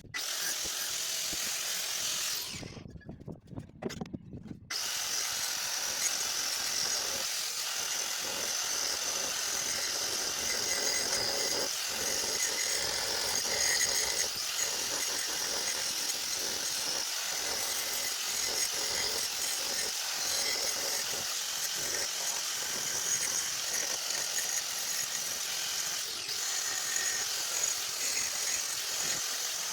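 Angle grinder running steadily with a high-pitched whine. It cuts out about two and a half seconds in and starts again about two seconds later.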